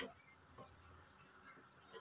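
A wooden spoon knocking against an aluminium pot while stirring: a light knock at the start and a fainter one about half a second later, otherwise near silence.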